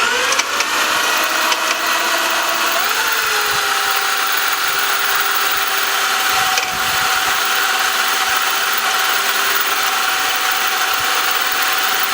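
Power tool with a cobalt drill bit running at speed and boring into a broken bolt, making a pilot hole for a bolt extractor. It spins up at the start, its pitch rises about three seconds in, then it holds a steady whine.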